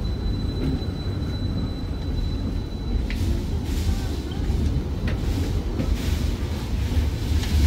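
Stadler Variobahn tram pulling away from a street stop: a steady low running rumble, with a few sharp clicks and knocks of the wheels on the rails from about three seconds in.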